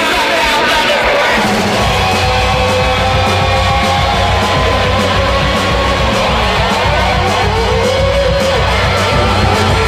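Rock music with guitar and singing; a heavier low bass and drum part comes in about a second and a half in.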